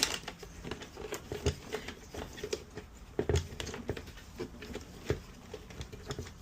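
Hands working parts inside an espresso machine's housing: irregular light clicks, taps and rustles of plastic and metal, with a few louder knocks.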